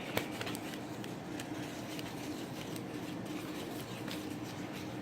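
Scattered small clicks and rustles from things being handled, over a faint steady hum.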